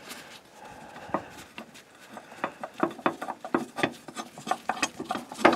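Irregular small metallic clicks and taps of a bolt being fitted and started by hand into a steel transmission cross member, with a sharper knock near the end.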